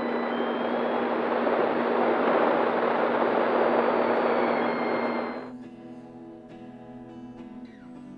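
Electric motor and propeller of a Flex Innovations Cessna 170 RC model in flight: a loud, steady rushing sound with faint high whining tones gliding up and down. About five and a half seconds in it cuts off suddenly and gives way to acoustic guitar music.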